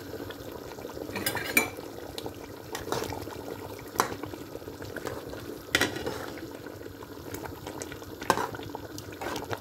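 A metal spoon stirring chicken and potato curry in a metal pot, knocking and scraping against the pot's side at irregular moments every second or two, over the soft bubbling of the simmering liquid.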